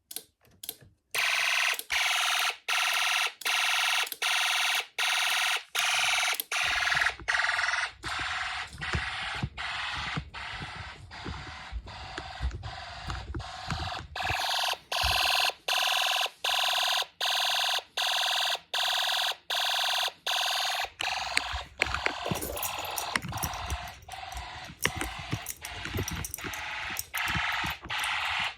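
Snap Circuits fire alarm system sounding: an electronic alarm tone pulsing on and off a little under two times a second, starting about a second in. The tone changes character partway through.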